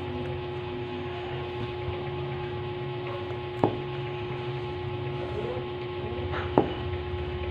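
A steady mechanical hum with a constant tone and a low rumble, broken twice by a sharp click or knock about three seconds apart.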